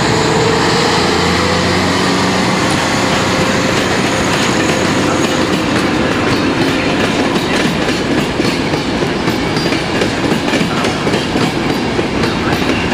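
ČD class 350 electric locomotive hauling a passenger express past, its steady hum fading over the first few seconds. Then the passenger coaches roll by, their wheels clicking over the rail joints.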